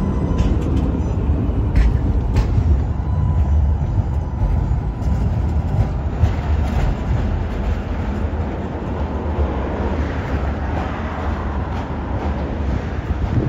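Ganz CSMG2 articulated tram running past close by: a loud low rumble with a few sharp clicks in the first few seconds. After about six seconds the tram is farther off, its rumble and wheel noise going on as it draws away.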